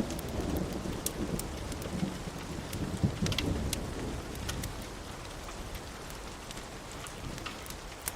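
Rainstorm ambience: steady rain with a low thunder rumble that fades out about halfway through, and scattered sharp ticks of drops.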